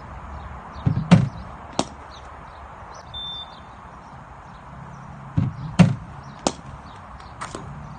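A cricket bat striking the ball in net practice, twice: about a second in and again near six seconds. Each stroke is a sharp crack with a duller thud just before it, followed by a lighter knock.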